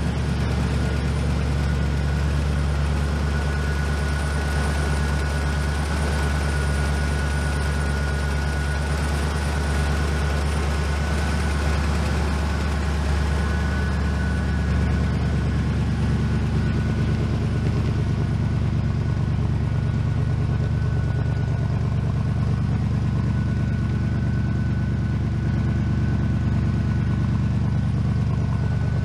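Custom 1957 Ford panel truck's engine idling steadily through its dual exhausts, with no revving.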